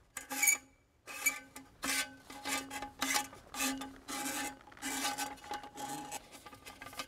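Electrical wire sliding through a hollow aluminum lamppost, a run of short scraping rubs against the metal tube.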